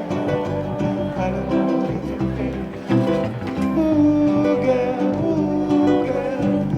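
Hawaiian band music led by strummed acoustic guitars, with held melody notes over a steady rhythm.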